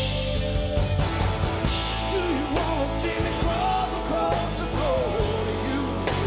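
Live rock band playing: electric guitars and a drum kit, with a wavering lead melody coming in about two seconds in over steady drum strokes.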